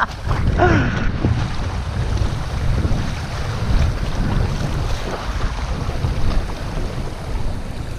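Wind buffeting the microphone, mixed with shallow river water splashing and rushing around a wader's legs. It is a steady, heavy rumble with no clear rhythm.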